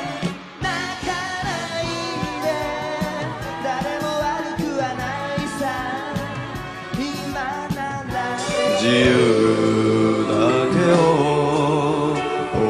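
Japanese pop song with a male lead singer over band backing. About two-thirds of the way through it cuts to a different male-sung pop song, which is louder and fuller.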